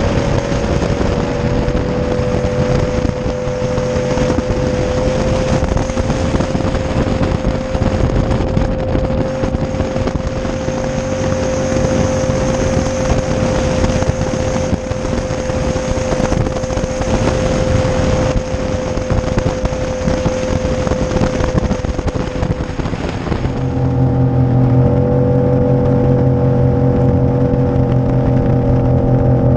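Mercury 150 Pro XS four-stroke outboard running at cruising speed on a bass boat, a steady engine hum under the rush of wind and water over the hull in chop. About 23 seconds in, the rushing noise drops away and the engine's lower hum comes through more clearly.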